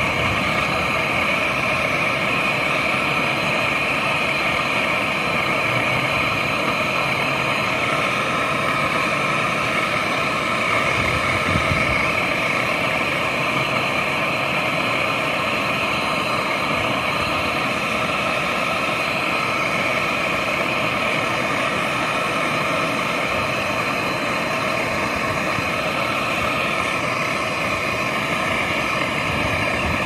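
Handheld gas brazing torch burning steadily with a continuous hiss as it heats the compressor's brazed pipe joints to unbraze them for removal.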